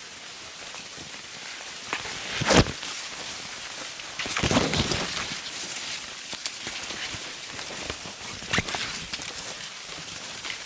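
Maize leaves and stalks rustling and brushing against bodies and the camera as two people push through a tall cornfield on foot, with footsteps. There is a sharp louder swish about two and a half seconds in and a longer rustle at about four and a half seconds.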